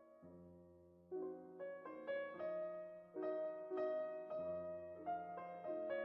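Background piano music: a slow melody over held bass notes.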